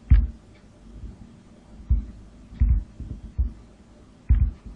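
A stylus writing on a drawing tablet, picked up through the desk as a few dull low thumps at uneven intervals. The first thump, just after the start, is the loudest.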